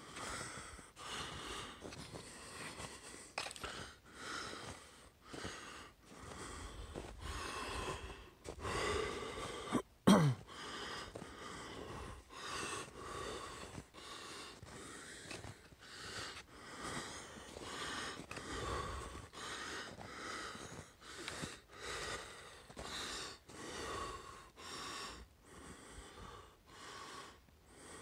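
A person breathing hard in a steady rhythm, about one breath a second, from the effort of walking through snow. One sharp knock comes about ten seconds in.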